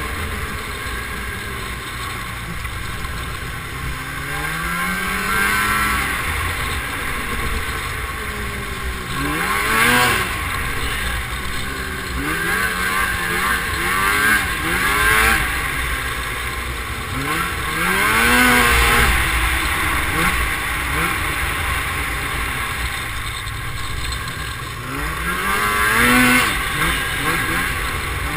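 Snowmobile engines running along a trail, the pitch rising and falling several times as the sleds speed up and ease off.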